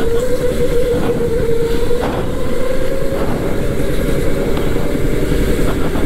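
Electric go-kart motor whining steadily under throttle, its pitch drifting slightly up and down, over a dense low rumble.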